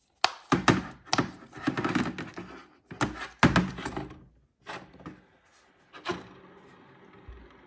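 Silicone bubbles on a hard-shell plastic flower pop-it fidget spinner being pressed with the fingers: a quick run of popping clicks and hollow plastic thunks for about four seconds, then two more single pops.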